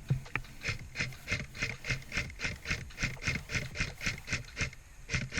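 Quick, even footsteps, about four a second, crunching on the ground as a player jogs.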